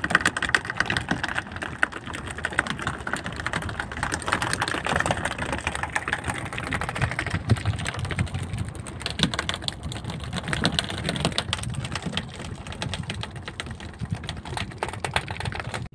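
Freshly caught little tuna beating their tails against a wooden boat deck: a dense, rapid, irregular tapping that goes on without a break.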